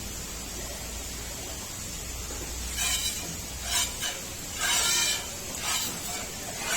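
A steady hiss, then a run of short, high-pitched animal calls starting about three seconds in, five in about four seconds.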